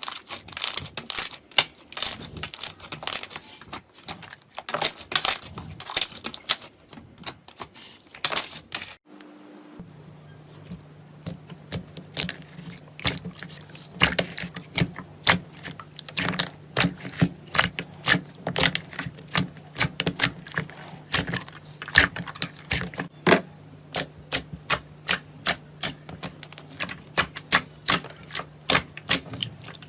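Slime being squeezed and pressed by hand, making rapid sharp popping clicks several times a second. There is a short break about nine seconds in, after which the clicks continue over a faint steady low hum.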